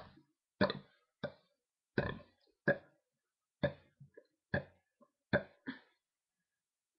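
A person burping in a quick string of about nine short burps, roughly one every two-thirds of a second, stopping about a second before the end.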